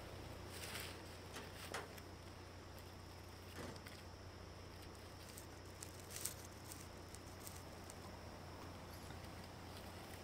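Quiet ambience: a low steady hum with a few faint, scattered crackles of dry leaves, the sharpest about six seconds in.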